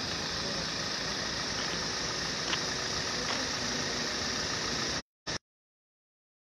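Steady rushing noise at a large building fire, mixed with idling vehicle engines, with a couple of faint clicks in the middle. The sound cuts out abruptly about five seconds in, a dropout in the recording.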